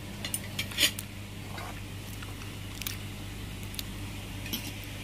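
Forks and spoons clinking against plates and a metal rice pot during a meal: a few scattered clicks, the loudest just under a second in, over a steady low hum.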